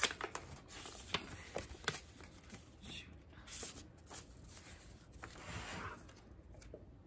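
Paper envelope and card being handled: soft rustling with scattered small clicks, then a couple of short rasping slides of paper.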